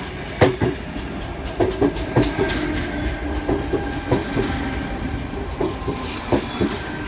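Sydney Trains Tangara electric train pulling into the platform, its wheels clacking over rail joints under a steady motor whine. A brief hiss comes about six seconds in.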